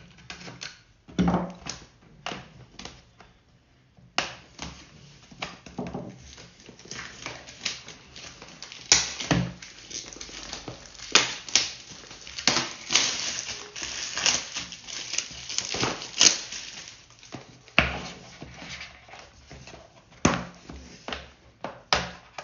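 Plastic shrink-wrap being cut and peeled off a cardboard box, with an irregular run of crinkling and crackling, and a few heavier knocks as the box is handled.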